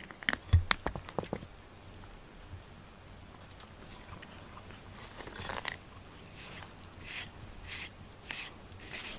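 A cat's face and nose at the camera microphone: a few knocks and clicks as it bumps the camera in the first second and a half, then soft puffs of breath about every half second from about halfway through.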